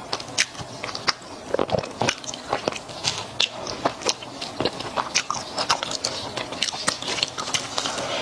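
Close-miked biting and chewing of durian pizza with a squid-ink crust, with irregular crisp crackles and clicks, several a second.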